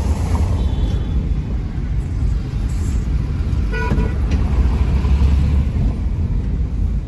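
Steady low road and engine rumble of a car driving through city traffic, heard from inside the cabin, with one short car-horn toot about four seconds in.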